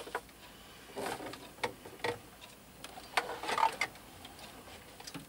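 Hands rummaging among cables and electronic gear on a shelf: irregular clicks, knocks and rustling scrapes, a few each second in bunches.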